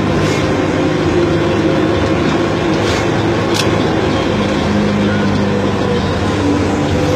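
Bus engine running in a steady, loud drone, its note shifting a little partway through as it drives.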